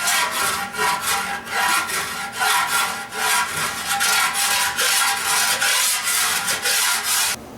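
Coarse bastard body file rasping over lead body filler in repeated slow strokes, final-shaping the leaded transitions on the metal; the filing stops abruptly near the end.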